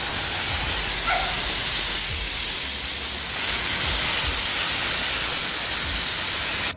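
Garden hose spraying water onto shrubs and grass: a steady hiss of spray that cuts off suddenly at the very end.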